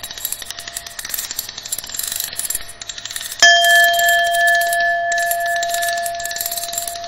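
Experimental electronic noise track: dense crackling and clicking over a faint steady tone, then about halfway a sudden bell-like chime rings out with several tones at once, the higher ones dying away over the next few seconds while the lowest keeps sounding.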